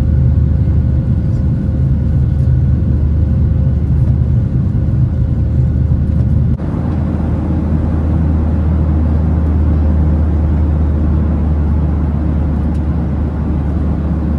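Steady low rumble of a moving vehicle, changing abruptly once about six and a half seconds in.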